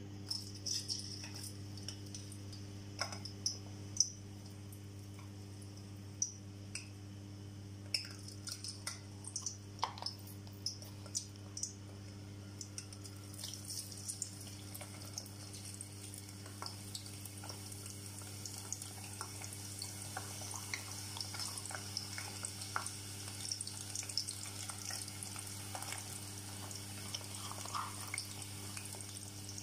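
Sliced onions frying in hot oil in a stainless steel saucepan. Scattered crackles and pops as the slices go in build to a steady sizzle from about halfway through.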